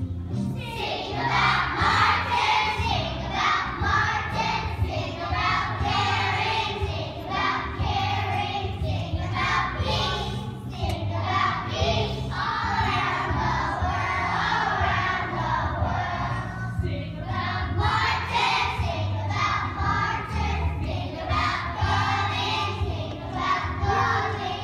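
A choir of young children singing together over an instrumental accompaniment.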